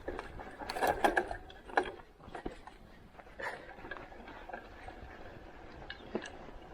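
Bicycle rattling and clicking over rough ground, a mix of ratchet-like ticks and knocks, loudest about a second in.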